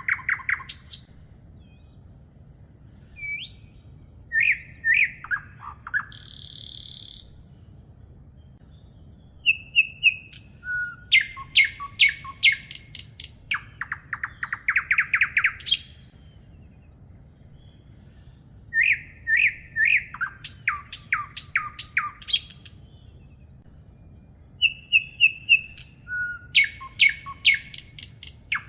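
Birds singing: loud, repeated song phrases of quick chirps and trills, each a second or two long with gaps of a few seconds between them, over a faint steady low hum. A short hiss about six seconds in.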